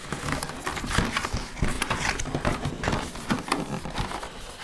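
A hard plastic laptop case shell being slid out of its cardboard box, with irregular scraping, rustling and knocking of plastic against cardboard.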